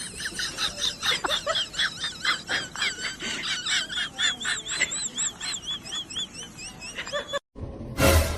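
Rapid, high-pitched chirping calls from an animal, many overlapping a few times a second, cut off suddenly near the end, followed by one loud whoosh.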